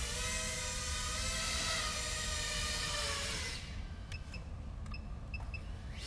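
Small Flywoo Explorer FPV quadcopter's motors and propellers whining in a low hover, the pitch wavering as the throttle shifts. The whine cuts out about three and a half seconds in. A few short high beeps sound in the lull that follows.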